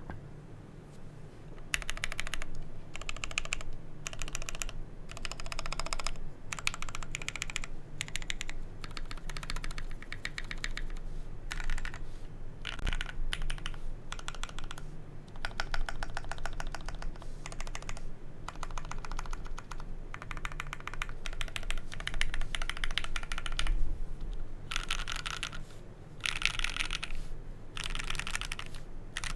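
Typing on a KBD67 mechanical keyboard with lubed Gateron Yellow linear switches, a carbon-fibre plate and case foam: quick runs of keystrokes in spurts of a second or two, broken by short pauses.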